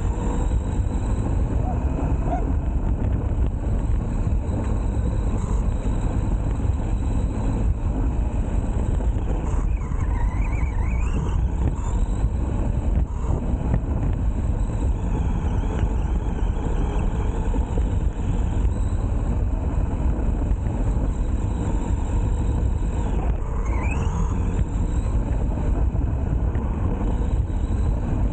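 RC car heard from a camera mounted on it: a steady rumble of its motor and knobby tyres running over grass and leaves. Twice, about ten seconds in and again past twenty seconds, a short whine rises in pitch.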